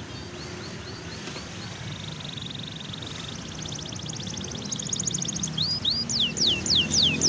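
Domestic canary singing: rapid trills of short repeated notes, soft at first and louder from about four seconds in, then a run of high whistled notes sliding downward near the end.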